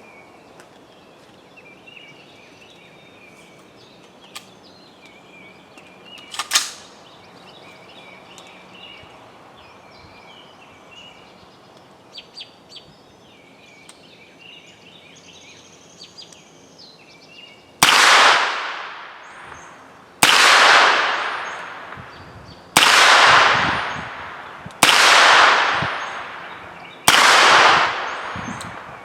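Five 9mm gunshots fired at a steady pace, about two seconds apart, in the second half, each ringing out and fading over a second or two, with faint bird chirps in the background.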